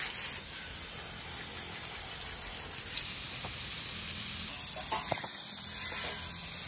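Water hissing steadily from a garden hose spray nozzle as it is sprayed onto a young horse's legs and hooves and spatters on the wet ground.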